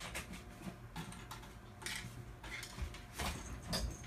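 Cats moving about: faint scattered ticks and light scuffs, with a few louder brushing noises in the second half.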